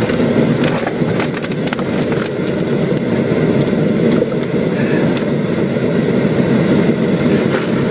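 Steady low vehicle engine rumble, heard from inside an armoured vehicle lying on its side. Scattered sharp clicks and knocks come in the first two seconds or so.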